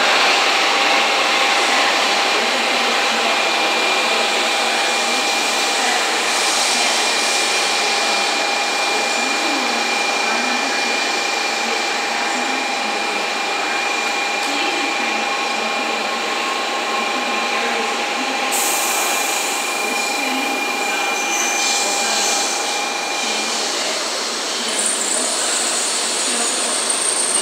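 N700 series Shinkansen pulling into the station, its cars running steadily past with a broad rushing rumble. Two steady high whining tones ride over it and die away about three seconds before the end as the train slows.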